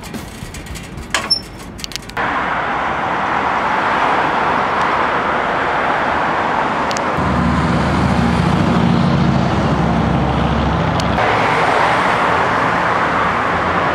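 Steady street traffic noise from passing cars, with the deeper engine rumble of a heavier vehicle for about four seconds in the middle.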